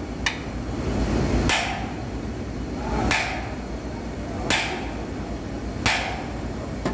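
Sledgehammer striking the steel foot bracket of a large electric motor five times, a blow about every second and a half, each a metallic clang with a short ring. The blows nudge the motor on its base to bring its shaft into alignment.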